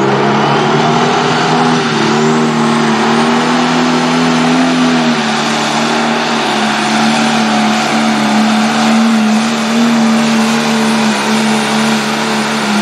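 John Deere pulling tractor's turbocharged diesel engine running hard under load as it drags the sled. The pitch holds almost steady at high revs, rising slightly a couple of seconds in and easing back about five seconds in.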